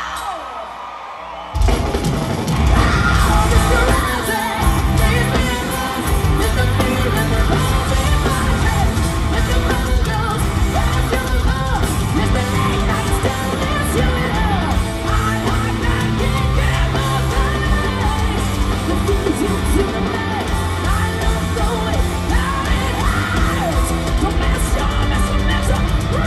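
Live hard rock band playing loud, led by distorted electric guitars. After a brief quieter moment, the full band crashes back in about a second and a half in and keeps going hard.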